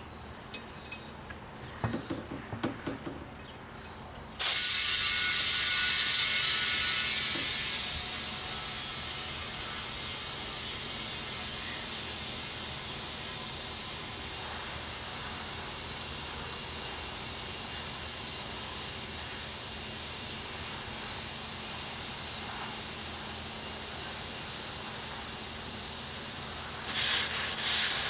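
Compressed air from an air hose hissing into a truck tire as it is inflated. A few light clicks come first. Then a loud hiss starts suddenly about four seconds in, eases a little after a few seconds, and runs on steadily until near the end.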